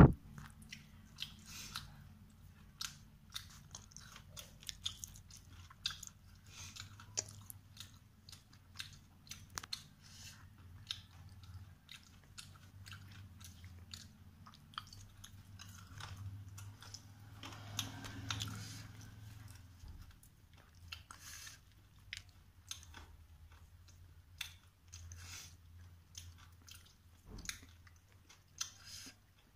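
A person eating rice and curry with her hand: close chewing and mouth sounds, with many short clicks and smacks.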